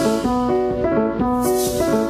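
Background music: a quick repeating run of pitched keyboard-like notes, with a brief high hiss returning about every two seconds.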